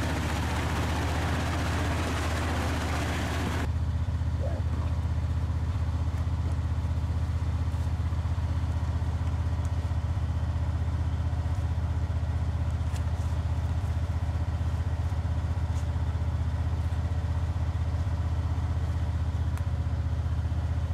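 All-terrain vehicle's engine running with a steady low drone, under a loud rushing noise for the first few seconds that cuts off abruptly; the engine then idles on steadily.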